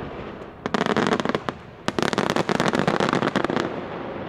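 Aerial firework shells bursting into crackling stars: two dense runs of rapid crackles, a short one about a second in and a longer one from about two seconds in, easing off near the end.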